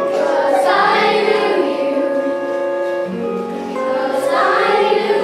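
A children's choir singing a song together over an instrumental backing track.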